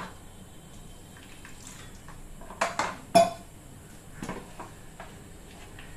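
Clinks and knocks of kitchen utensils and dishes as flour batter is mixed in a plastic bowl, with the sharpest knocks a little after two and a half seconds and about three seconds in.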